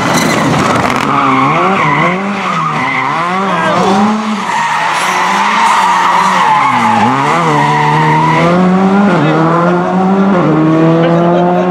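Škoda Fabia R5 rally car's turbocharged four-cylinder engine, its revs rising and falling quickly under the throttle while the tyres squeal through a tight turn. It then accelerates away, revs climbing with two quick upshifts.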